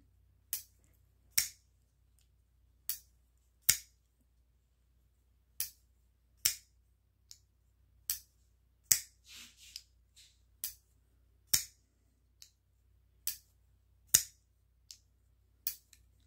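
Kizer Yacht flipper folding knife being flicked open and closed again and again: sharp clicks as the blade snaps out and locks on its liner lock and then shuts, at uneven spacing of roughly one a second.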